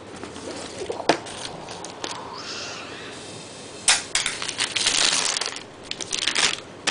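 Cardboard shoe box handled, with a sharp tap about a second in, then tissue paper crinkling and rustling from about four seconds in as it is folded back from the shoes inside.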